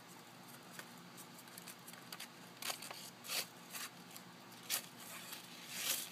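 Newspaper and dry hay crinkling in a few short, scratchy bursts as a tortoise hatchling crawls across the paper, the loudest near the end.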